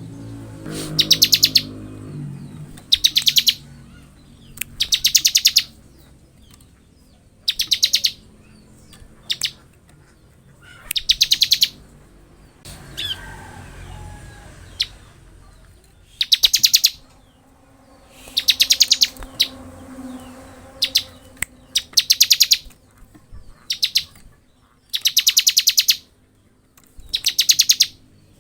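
Bar-winged prinia (ciblek) singing in the full 'ngebren' style: loud, rapid high trills, each about a second long, repeated every couple of seconds with short gaps.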